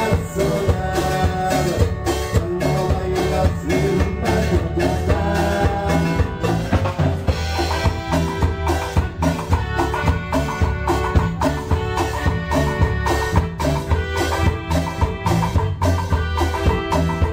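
Band music playing an instrumental passage: a drum kit keeps a steady, quick beat under a bass line and held melodic lines, with no singing.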